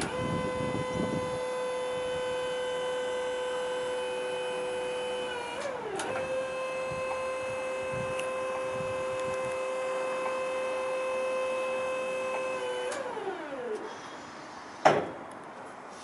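Battery-electric Flexi G3 articulated forklift's hydraulic pump motor whining steadily as the mast and forks are worked, with a brief jump in pitch about six seconds in. Near the end the whine falls in pitch as the motor runs down, then a single sharp knock.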